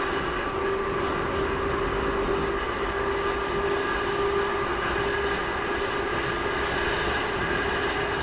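Seibu 571 series electric train running at a steady speed, its nose-suspended traction motors and gears giving a steady multi-tone whine over the wheel and track rumble. The whine cuts off abruptly at the very end.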